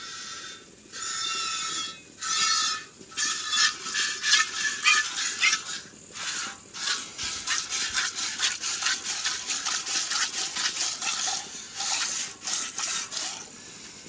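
Hand-milking a cow: streams of milk squirted from the teats into a steel pail, a rhythmic hiss of spray hitting the metal, several squirts a second as the hands alternate.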